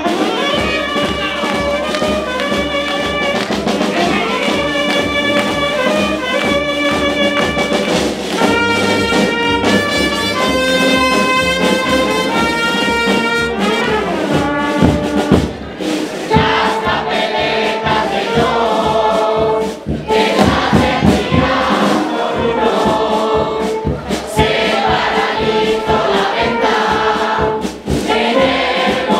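A Spanish carnival band song, murga style: trumpets and tuba-family brass horns play over a steadily beaten bass drum, with a group of voices singing along.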